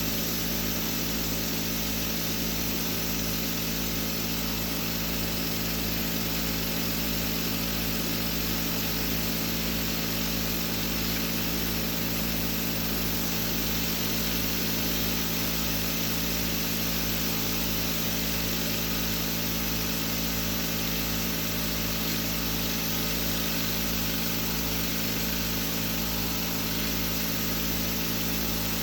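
10-inch Tesla disc turbine running steadily at speed on agricultural hex-bore bearings built for low RPM, which drag heavily at this speed. It gives a constant hum with several steady whine tones over an even hiss.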